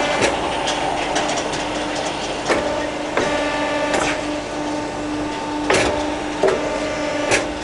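Bonfu DW38 CNC tube bender running through its automatic bending cycle: a steady machine hum with five sharp clicks or clunks spaced a second or two apart.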